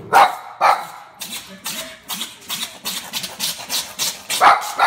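A domestic cat making short, sharp, bark-like calls a few times a second, with louder ones near the start and again near the end.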